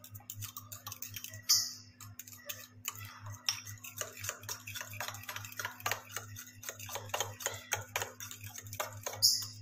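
A spoon stirring a thick sauce in a small glass bowl, clicking and scraping against the glass in quick, irregular strokes, with a sharper scrape about a second and a half in and again near the end.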